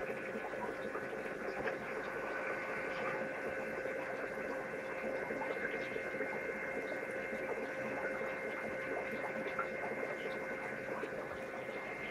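Aquarium sponge filter running on air: a steady hum with continuous bubbling.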